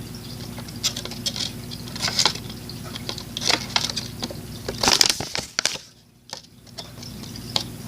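Homemade paper card packs being handled and propped up: scattered light taps and rustles, with a louder cluster of taps about five seconds in.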